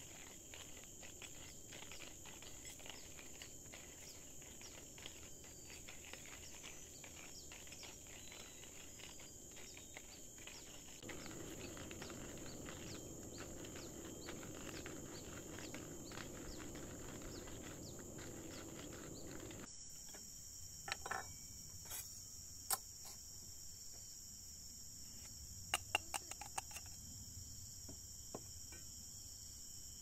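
Tropical forest ambience: insects trilling in a steady, high, even drone, joined by a low rushing noise from about a third of the way in. After an abrupt change about two-thirds through, a bird gives several short, sharp calls.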